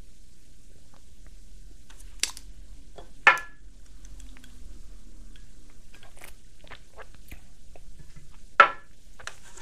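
A drinking glass handled at a desk while someone drinks: two sharp clinks about three and eight and a half seconds in, with small clicks and quiet mouth sounds between.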